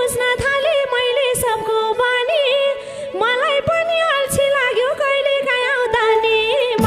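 Live Nepali dohori folk music: a woman sings an ornamented, wavering melody, backed by regular madal drum strokes and the band.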